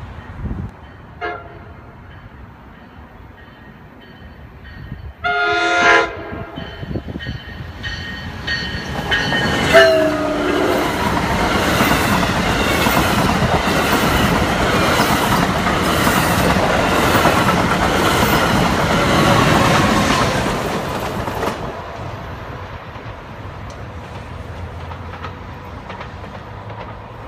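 Multi-note chime horn of an NJ Transit commuter train, probably a Nathan K5LA, sounding a loud blast about five seconds in and another about nine seconds in, the second sliding down in pitch as the train reaches the microphone. The train of bilevel coaches then passes at speed for about ten seconds, with a loud rush of rolling noise and wheels clicking regularly over the rail joints, before it cuts off.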